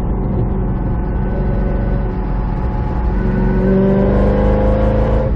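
A 2005 Chevrolet Corvette's V8 running at highway speed, then accelerating hard about three seconds in, its pitch climbing steadily as the revs rise. This is a throttle pull in fourth gear, testing whether the engine still hesitates and cuts out at higher RPM.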